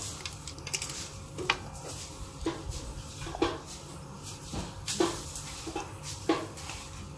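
Pot of soup broth boiling, with short pops of bursting bubbles at irregular spacing, roughly one a second, over a low steady background.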